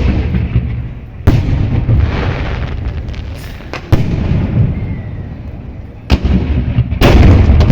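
Fireworks going off: five sharp booms a second or more apart, with a low rumble between them. The last bang, near the end, is the loudest and is followed by more rumbling.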